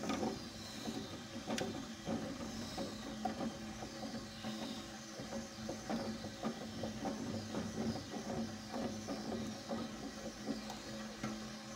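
Wooden spatula stirring and scraping around a metal saucepan of hot milk with lumps of seized caramel, a run of short irregular scrapes, over a steady low hum.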